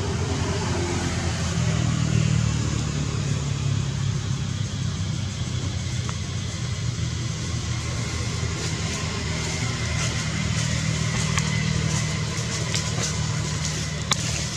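Steady low hum of an engine running, holding a constant pitch, with faint clicks and a thin high tone in the latter half.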